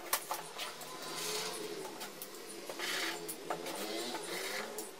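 Colored pencil scratching across paper as a margin is drawn: a few short strokes with small taps between them where dots are pressed on, over a sheet resting on a cardboard box.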